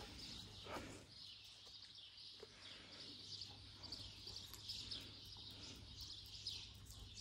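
A flock of small birds chirping: many short, high chirps overlapping continuously, faint.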